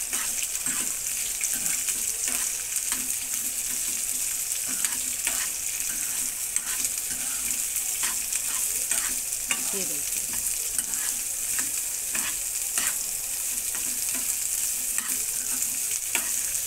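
Sliced onions sizzling in hot oil in a kadai, with a steady hiss. A metal spoon scrapes and clicks against the pan at irregular intervals as the onions are stirred.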